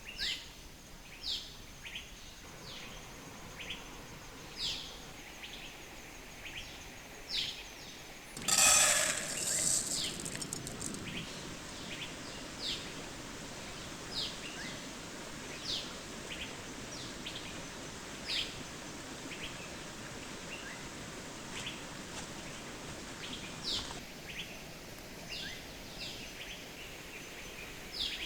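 A bird repeating a short, sharp, falling chirp about once a second over a steady rush of water. About eight seconds in, a brief loud rushing noise rises and fades over a second or so.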